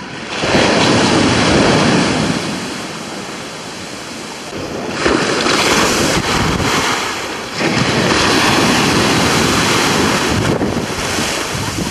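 Sea surf washing and breaking on a beach, with wind buffeting the microphone; the rushing water swells and eases several times.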